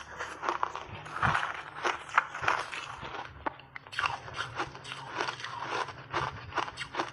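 Crunchy ice chunks coated in matcha tea and milk powder being bitten and chewed close to a lapel microphone: a rapid, uneven run of crisp crunches, several a second.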